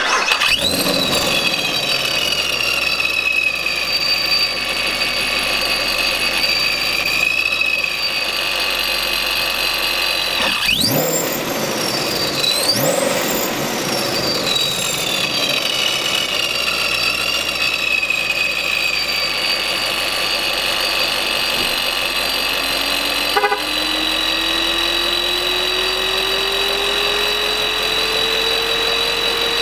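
Procharger-supercharged 6.2 L LT1 V8 of a sixth-generation Camaro SS, just started and idling with a high supercharger whine that falls as the start flare settles. About 11 and 13 seconds in, two quick throttle blips send the whine sweeping sharply up and back down. After a click about 23 seconds in, a lower tone slowly rises in pitch.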